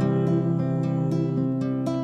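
Solo classical guitar fingerpicked, its notes left ringing over one another, with a few soft plucks.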